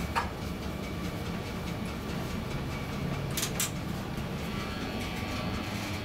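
Westinghouse elevator car, modernised by Kone, travelling up the shaft: a steady low rumble of the running car. Sharp clicks come just after the start and twice close together about three and a half seconds in.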